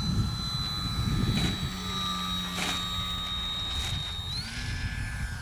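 Electric motor and propeller of a Flite Test Freedom Fox RC plane, a 3S electric model, whining steadily in low, slow flight, then stepping up in pitch a little over four seconds in. A low rumble of wind on the microphone runs underneath.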